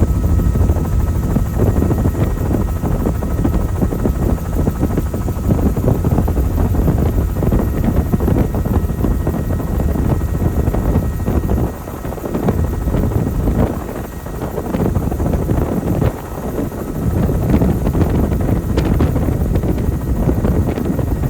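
Helicopter in flight: a loud, steady rotor-and-engine rumble heard from aboard, dipping and swelling a few times in gusts.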